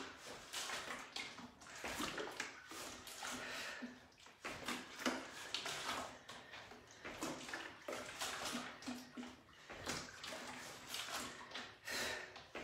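Water sloshing in a large plastic container held as a hand weight during side lunges, in repeated irregular swishes.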